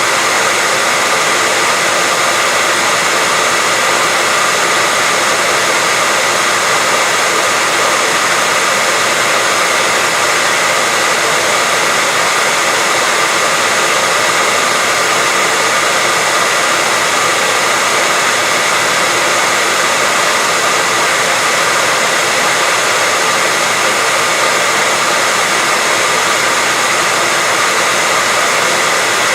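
Steady white-noise hiss, even and unchanging, bright with little bass.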